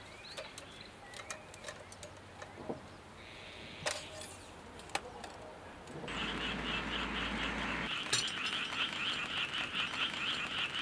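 Frogs calling in a rapid, pulsing chorus that starts abruptly a little past halfway. Before it, the sound is quieter, with scattered sharp taps and a few short bird chirps.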